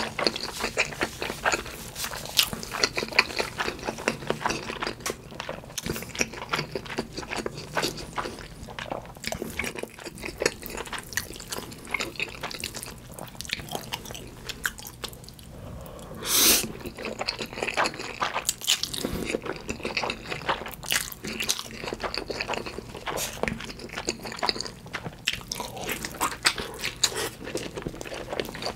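Close-miked eating: wet chewing and mouth clicks of a person eating Spam and black bean instant noodles, with a brief louder rush about halfway through as noodles are slurped.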